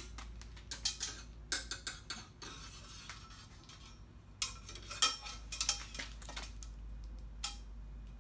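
Metal clinks and taps as steel rod and tubing are pushed and set against a milling machine vise: irregular sharp, ringing strikes in small clusters, the loudest about five seconds in.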